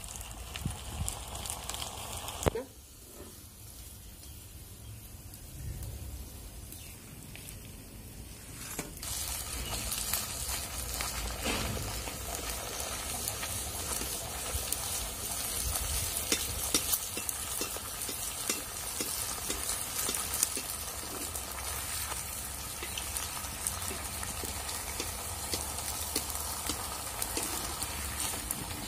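Rice-flour puri deep-frying in hot oil in an iron kadhai: a steady sizzle that drops quieter about 2.5 s in and builds up loud again from about 9 s, with occasional clicks of a slotted metal spoon against the pan.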